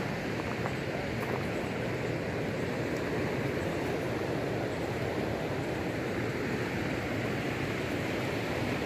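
River water rushing steadily through shallow rocky riffles.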